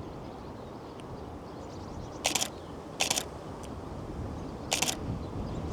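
Canon 5D Mark III DSLR shutter and mirror firing three times, short sharp clacks about two seconds in, a second later and near the end, over a low steady outdoor background.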